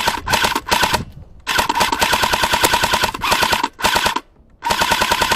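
Airsoft light machine gun firing full-auto: three short bursts, then a long burst of about two seconds, another short burst, and a new burst starting near the end, each a rapid rattle of shots over a steady whine.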